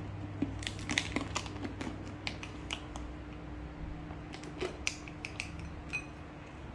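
Spatula tapping and scraping against a cut-glass bowl while stirring curry powder into liquid. Quick, irregular clicks come in two bursts, some leaving a brief glassy ring, over a steady low hum.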